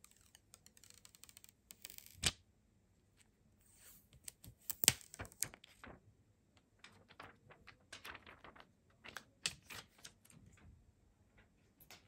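Protective plastic film being peeled off a power bank's screen, crackling, among scattered sharp clicks and taps of the plastic casing being handled; the loudest clicks come about two and five seconds in.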